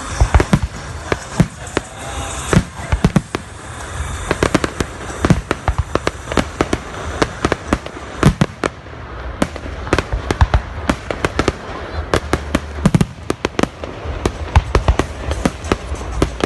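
Fireworks display: a dense, irregular barrage of shell bursts and sharp bangs, at times several a second, with thicker volleys in the middle and near the end.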